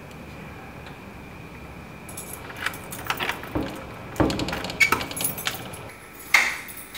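A door lock being worked by hand, with metallic clicks and rattling, then one loud metal clank with a short ring near the end as the door or gate is unlatched.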